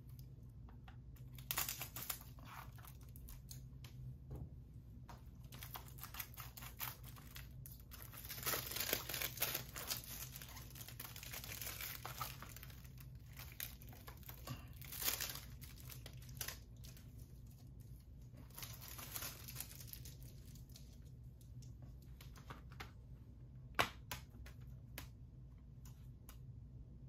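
Plastic shrink wrap being torn and peeled off a 4K Blu-ray collector's edition case, crinkling in irregular bursts with a longer stretch in the middle. A single sharp click comes near the end.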